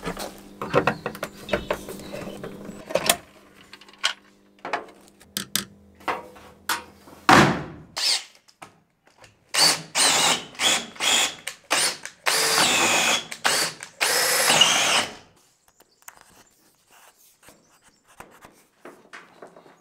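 Cordless drill run in a series of short bursts and then two longer runs, its pitch rising and falling with trigger speed. Before it come scattered clicks and knocks of handling tools.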